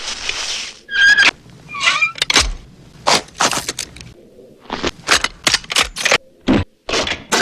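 A rapid, uneven run of sharp action sound effects: hits, cracks and bangs, with two brief shrill squeals about a second in.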